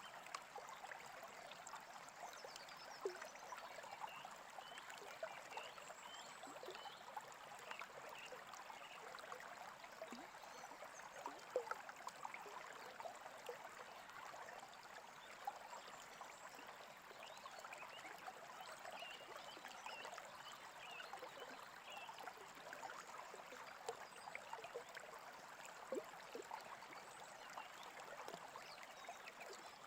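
A small stream babbling steadily, with faint short bird chirps scattered over it.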